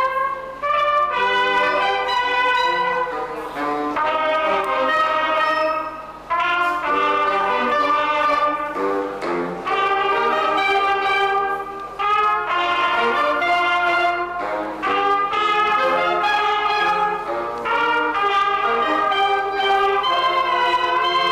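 Brass-led band music, trumpets and other brass playing a melody in short phrases, with a steady low hum underneath.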